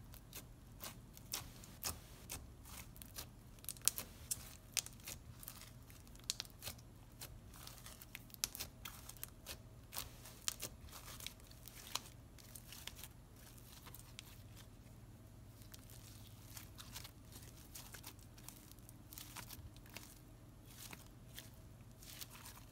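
Floam slime, slime packed with foam beads, being pressed, squeezed and stretched by hand, giving a run of sharp crackles and pops. The crackles come thick and fast for the first half and thin out later.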